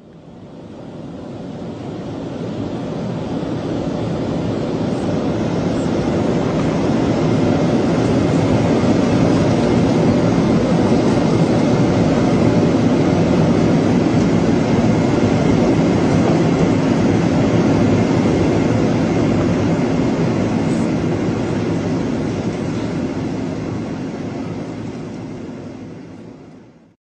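Aircraft cabin noise: the steady drone of engines and rushing air heard from inside a plane in flight. It fades in over the first several seconds and fades out near the end.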